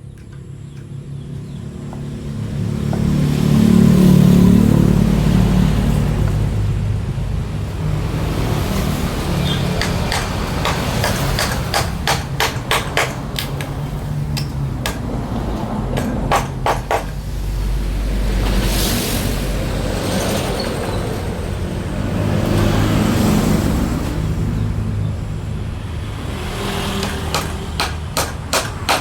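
Wood being hammered in short runs of sharp knocks, three bursts of several blows each, over a steady low engine or motor rumble that swells in the first few seconds.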